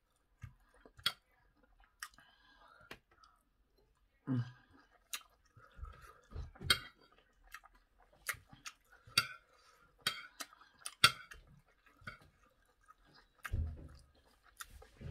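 Close-miked chewing of a mouthful of rice and chicken in sauce, with scattered sharp clicks and smacks from the mouth and a metal spoon scooping on a plate.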